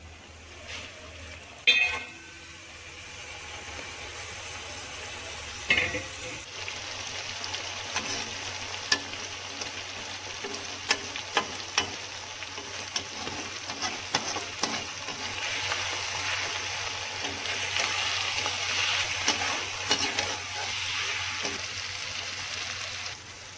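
Pork and fermented bamboo shoot sizzling in a wok with a little water added for gravy. A slotted metal spatula scrapes and taps against the pan as the food is stirred. The sizzle grows steadier from a few seconds in, with scattered clicks and a couple of louder knocks early on.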